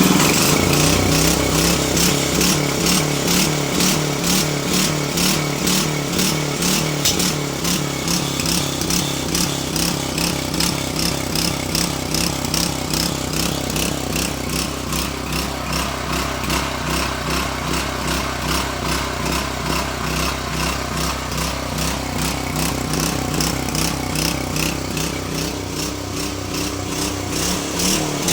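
Motorcycle engine running while the throttle is varied, with an even run of sharp, firecracker-like pops from the exhaust as the throttle changes.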